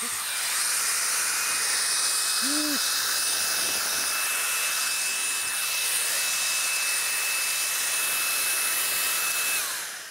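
Makita 40 V XGT cordless blower running with a high, steady whine over a rush of air. Its pitch climbs just after the start and holds level, then it is switched off near the end and winds down.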